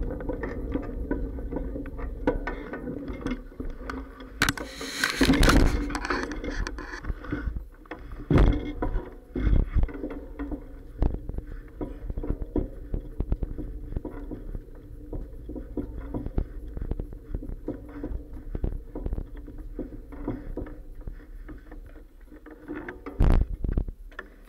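Clacks and bumps of a moving bicycle, carried into an action camera's waterproof case on the bike, over a low rumble. Small clicks run throughout, with a few heavier knocks, the loudest about five seconds in and again near the end.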